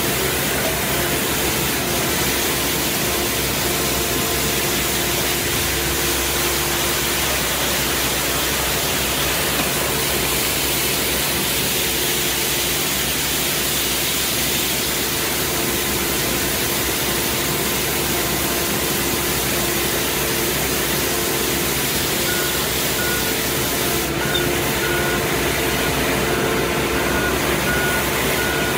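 Compact street sweeper running, its engine droning steadily while the spinning side brush sweeps the paving. About three-quarters of the way through, a high warning beep starts repeating about once a second.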